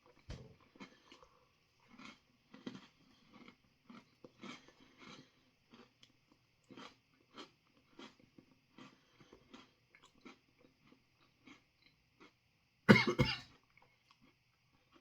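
Someone chewing a crunchy freeze-dried ice cream sandwich, a run of small crunches, then one loud cough about 13 seconds in, brought on by the hot pepper dust coating it.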